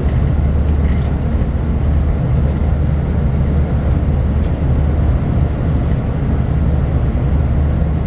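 Inside a bilevel Capitol Corridor passenger car under way: the moving train's steady low rumble, with a few faint ticks now and then.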